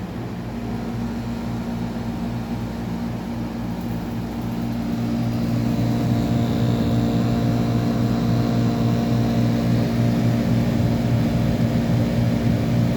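Vintage GE Superthrust air conditioner running after being switched on, with a steady low hum. It grows louder about five seconds in as the unit comes up to full running.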